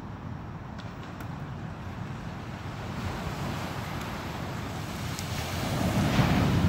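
Surf washing onto a sandy beach, with wind on the microphone; a wave breaks and rushes up the shore near the end, the loudest moment.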